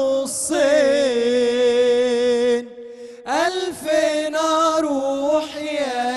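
Two young male voices singing an Egyptian devotional praise song for the Prophet (inshad) together in unison, in long melismatic held notes with vibrato. A short breath break comes about two and a half seconds in, and the voices then slide up into the next phrase.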